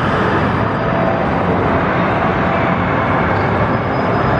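Steady, even din of a large indoor amusement park hall: a wash of ride and machinery noise with no single event standing out.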